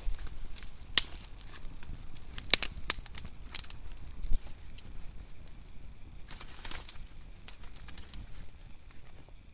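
Small fire of birch bark and dry twigs catching, crackling with sharp irregular pops and snaps, loudest about a second in and in a cluster between about two and a half and four and a half seconds in, with a brief rustle of dry material near the middle.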